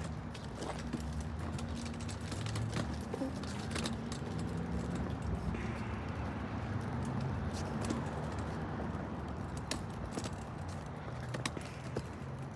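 Footsteps on a paved walk, roughly one a second, over a steady low hum.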